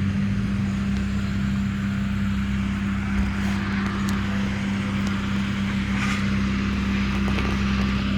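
An engine running at a steady, unchanging speed, with a constant low hum.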